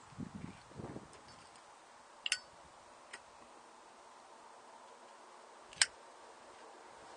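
Two sharp clicks a few seconds apart, the second louder: a cigarette lighter being struck to light a hand-rolled cigarette. Soft low puffs come near the start.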